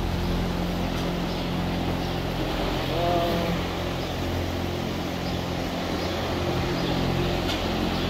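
Steady low hum of dairy-farm machinery running, with an even, unchanging drone.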